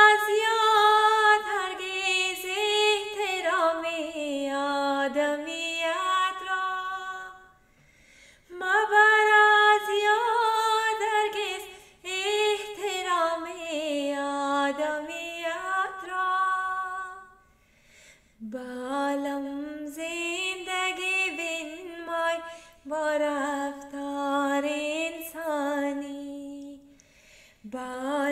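A woman singing a qasida, an Ismaili devotional song, unaccompanied. She sings about five long phrases with gliding, ornamented pitch, separated by short breaks.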